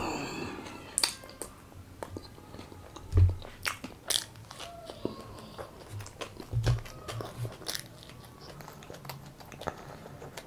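A person chewing mouthfuls of a soft white-bread veg sandwich: many short wet mouth clicks and smacks, with a few dull low thumps, the loudest about three seconds in.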